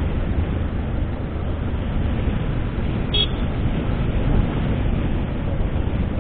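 Suzuki Hayabusa's inline-four ridden at speed: a steady rush of wind and road noise with the engine under it. A short, faint high beep sounds about three seconds in.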